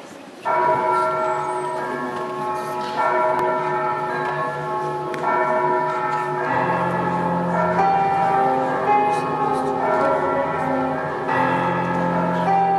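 Church bells ringing: several bells struck together start suddenly about half a second in and ring on, with fresh strikes every few seconds. A deep, heavier bell joins about six and a half seconds in and again near the end.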